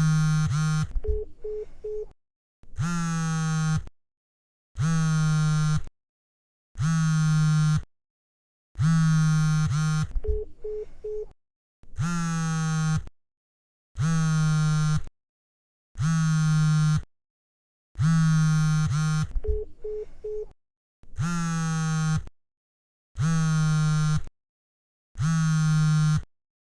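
Mobile phone vibrating in repeated buzzes, each a little over a second long with a short silence between, about one every two seconds. A few of the buzzes end in a short rattle.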